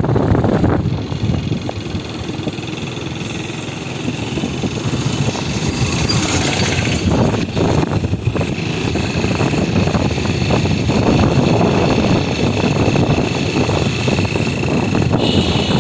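Engine of a small road vehicle running steadily as it drives along, with road noise.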